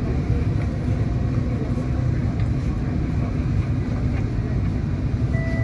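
Steady low rumble of vehicle noise, with a short steady electronic tone starting near the end.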